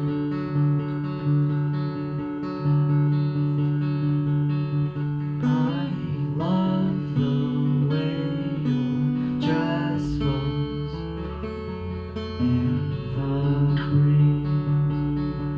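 Acoustic guitar playing a song, chords ringing out steadily.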